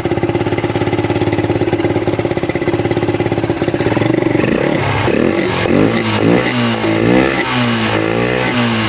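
Yamaha FZ's single-cylinder motorcycle engine running with its air filter removed: it idles steadily, then about halfway through it is revved up and down several times in quick blips.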